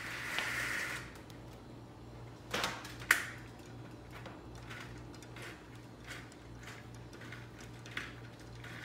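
Plastic vertical blinds being handled: scattered light clicks and clacks of the vanes and track, the sharpest about three seconds in, over a low steady hum. A hiss cuts off about a second in.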